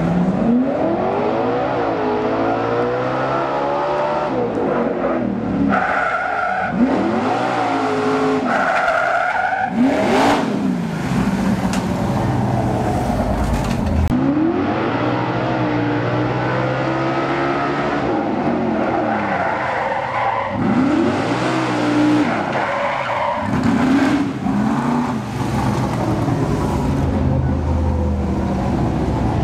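Engine of a fire drill team's motorized racing rig, run hard with its pitch climbing and dropping in a series of surges.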